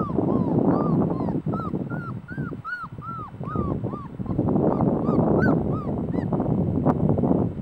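A litter of young puppies whining and crying: a quick run of short whines that rise and fall, about three a second, then fewer, scattered whines later on. A steady rushing noise runs underneath.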